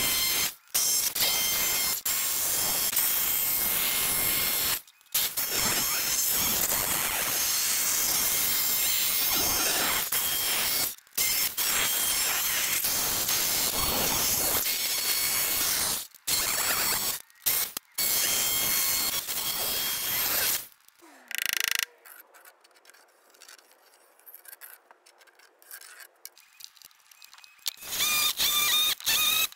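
Electric jigsaw cutting through 3/4-inch plywood, a loud rasping buzz with several brief breaks, for most of the first two-thirds. After a quieter stretch, an electric drill with a spade bit starts boring into the plywood near the end, its motor whining steadily.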